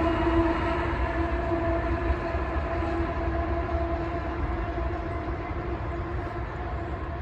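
Ballast train rolling past and moving away: a low rumble with a steady humming tone over it, both slowly fading.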